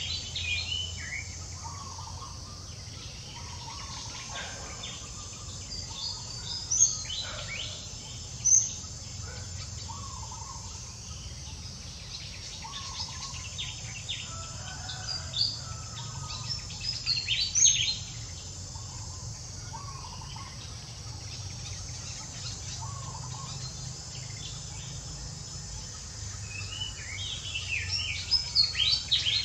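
Outdoor ambience: a steady high insect drone, with scattered short, high, falling chirps and squeaks. A few of them are loud, and a quick run of them comes near the end. Softer calls recur every few seconds over a low rumble.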